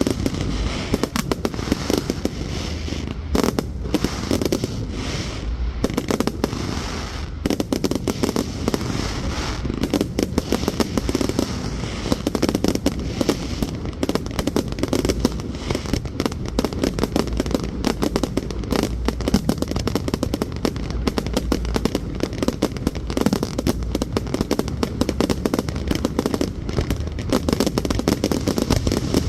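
Fireworks display: a dense, unbroken run of bangs and crackling bursts going off in quick succession.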